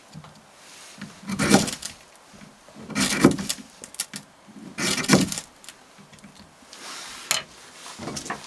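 Knife blade shaving strips off a stick of dry split wood: three long scraping strokes about two seconds apart. Fainter scrapes and a sharp knock of wood on the plank floor follow near the end.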